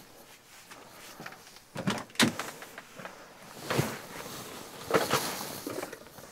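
Rear door of a Bison Overland truck camper being unlatched and opened, then a few sharp clicks and knocks as someone steps down its small ladder; the loudest knock comes about two seconds in.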